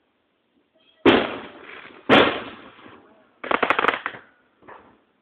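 Aerial firework shells bursting, heard through a phone's microphone: two loud bangs about a second apart, then a rapid crackling burst, and a fainter pop near the end.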